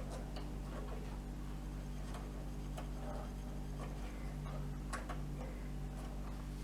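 Light, irregular clicks and taps of small metal parts being handled in the opened front turn-signal housing of a 1964 VW Beetle, whose bulb socket is crusty with corrosion, over a steady low hum.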